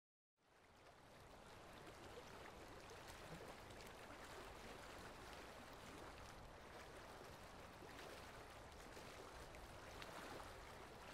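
Faint, steady outdoor ambience hiss with a few light scattered ticks, fading in just after the start.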